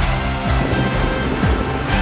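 Background music with a steady drum beat about once a second over held chords.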